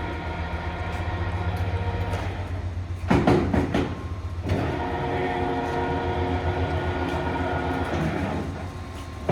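LeBlond engine lathe running under power, a steady hum with a whine of gears. About three seconds in, a loud rattling clatter lasts for about a second and a half, after which the gear whine carries on at a different pitch.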